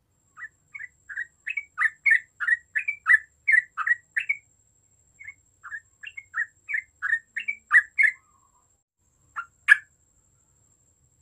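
Yellow-vented bulbul (trucukan) singing: a fast run of short chattering notes, about three a second, in two bursts of about four and three seconds, then two single notes near the end.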